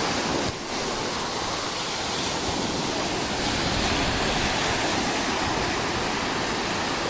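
Sea surf washing onto a beach: a steady rushing noise, dipping briefly about half a second in.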